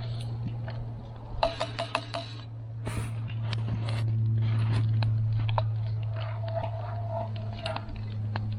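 A utensil scraping and clicking against a cast iron Dutch oven as gravy is stirred, in irregular knocks and scrapes over a steady low hum.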